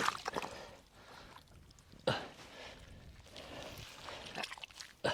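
Hands groping and digging through wet mud and shallow pond water, with irregular wet sloshing and a sudden splash about two seconds in and another at the end.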